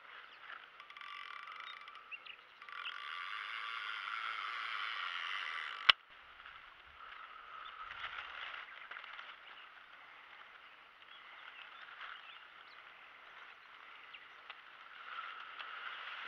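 Frogs calling in a steady chorus, louder for a few seconds and dropping back after a single sharp click about six seconds in.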